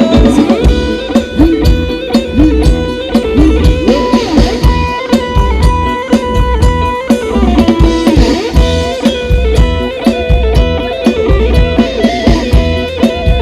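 Instrumental break in a Thai ramwong song: an electric guitar plays the melody over a drum kit and bass with a steady beat.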